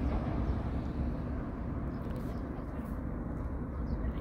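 Steady outdoor background rumble and hiss, deepest at the low end, with no distinct event.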